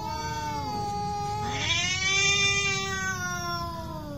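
Two cats in a fighting stand-off, yowling at each other in long, drawn-out caterwauls. One yowl falls in pitch and fades just past a second in. A louder one swells about two seconds in, then slides down in pitch toward the end.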